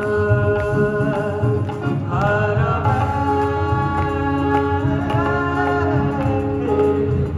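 A group of singers performing a song live, holding long notes together, accompanied by acoustic guitar, tabla and keyboard.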